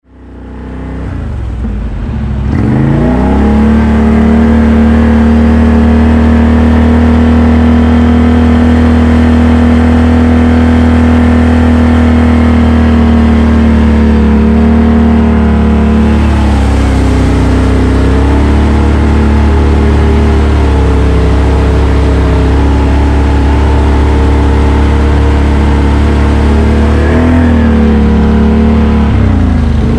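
ATV engine running under steady throttle. Its pitch climbs in the first few seconds, holds, then dips and recovers about halfway through and again near the end.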